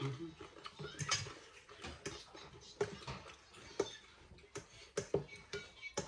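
Close, irregular wet clicks and smacks of a person chewing and eating noodle soup, one or two a second.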